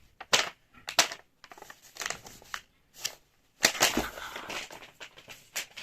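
Sheet of paper crinkling and rustling in short irregular bursts as it is unfolded and handled.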